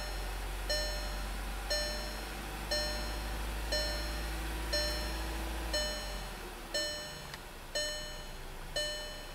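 Volkswagen CC dashboard warning chime dinging steadily about once a second, nine times, over the low hum of the engine idling.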